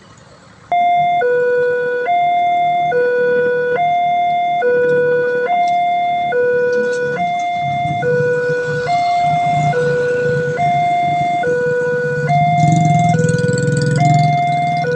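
Electronic warning siren at a railway level crossing, switching on suddenly about a second in and then sounding a two-tone hi-lo alarm: a higher tone and a lower tone alternating, each held just under a second. Under it runs a low rumble that swells near the end.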